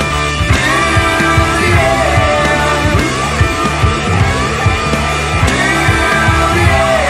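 Rock song played by a band: electric guitars with bending, held notes over bass and a steady drum beat.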